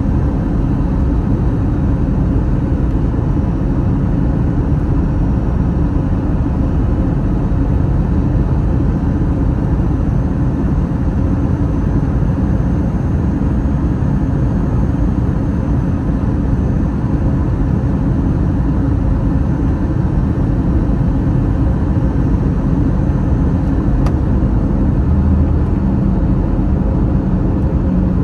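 Steady low rumble of an Airbus A321's engines and airflow, heard from inside the passenger cabin.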